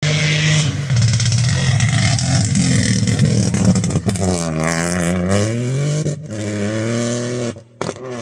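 Rally cars at full throttle on a special stage, engines revving hard. The engine pitch drops and climbs again about halfway through, and the sound breaks off abruptly a few times.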